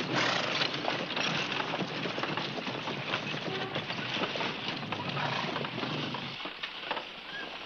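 Horse-drawn stagecoach: hooves clopping and the coach rattling in a dense clatter that dies down about six and a half seconds in.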